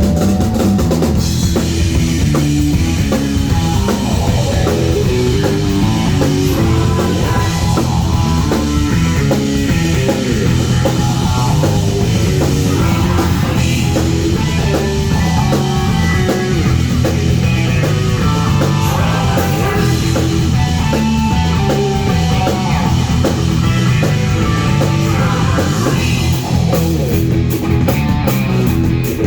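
A rock band playing live with electric guitar, bass and drum kit: loud, steady, fast-moving instrumental rock.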